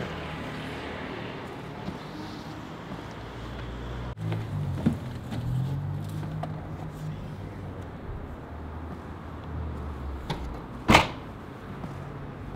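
Mini One hatchback's tailgate slammed shut with one loud thump about eleven seconds in, after a few lighter knocks from loading the boot.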